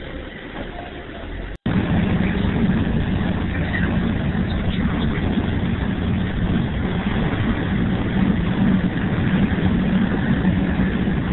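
Motorcoach engine and road rumble heard from inside the cabin while driving. It is steady and low-pitched, with a brief dropout about one and a half seconds in, after which the rumble is louder.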